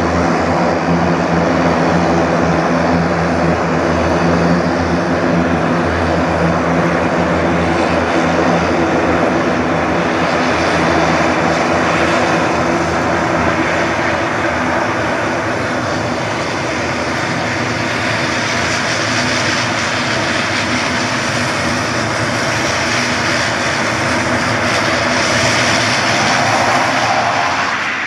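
Antonov An-140's two turboprop engines running steadily as it taxis, a propeller drone made of several low hum tones layered under a loud turbine hiss.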